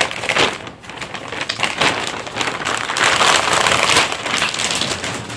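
Thin plastic shopping bag rustling and crinkling as it is opened and a hand rummages inside it, loudest a little past the middle and dying down near the end.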